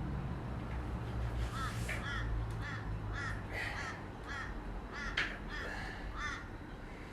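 A crow-like bird calling, a quick series of short calls spread over several seconds, over a steady low rumble.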